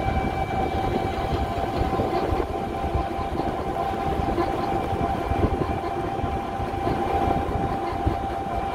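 Battery-powered auto-rickshaw on the move, heard from inside: steady rumble of road and body rattle, with a thin steady motor whine.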